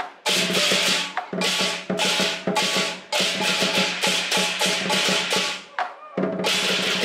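Lion dance percussion: a large drum beaten steadily under repeated crashing cymbal clashes. It plays in loud phrases broken by brief pauses, the longest about six seconds in.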